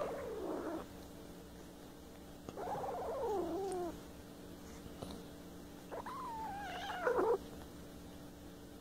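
A kitten growling at an older cat: three drawn-out, high wavering calls, each about a second long and sliding down in pitch, with gaps between them.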